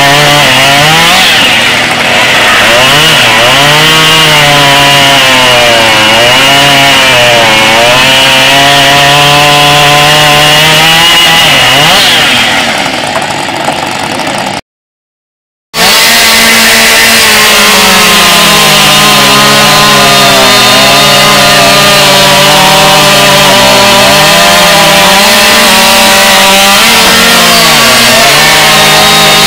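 Chainsaw running flat out and cutting through wood, its engine pitch sagging under load and picking up again every couple of seconds. About halfway through the sound drops off and cuts to silence for a second, then a chainsaw is cutting at full throttle again.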